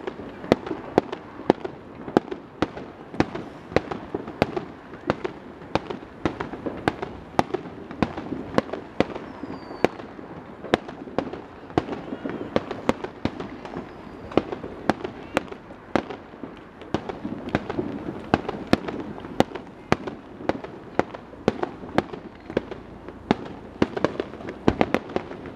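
Aerial fireworks shells bursting in rapid succession: sharp bangs come irregularly, about two or three a second, throughout.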